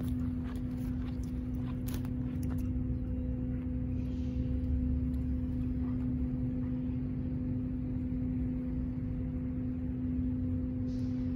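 Steady low outdoor rumble with a constant low hum, and a few light clicks in the first two seconds or so.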